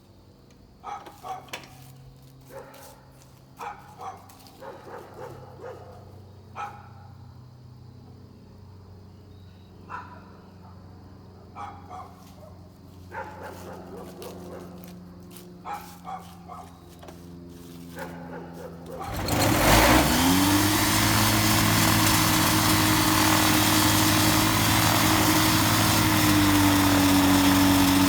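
A series of short sharp knocks over a low hum, then a rebuilt Rotax 503 two-cylinder two-stroke engine catches about two-thirds of the way through. It climbs quickly in rpm and runs loud and steady, settling a little lower in pitch near the end.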